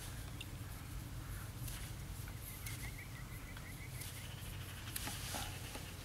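Faint rustles and light clicks of thin Ethernet cable wires being handled and straightened by hand, over a steady low outdoor rumble. A short, faint, high trill of repeated notes comes in about two seconds in and lasts a second or two.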